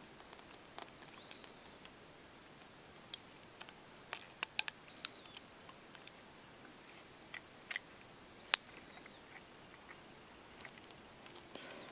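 Sporadic small, sharp clicks and taps from the plastic and metal parts of an iPhone 3G being handled and fitted by hand. They come in short clusters with quiet stretches between.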